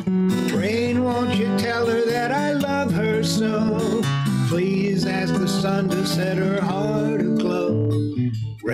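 Acoustic guitar instrumental break: a melody line with sliding notes over sustained low chords. The music drops away briefly near the end.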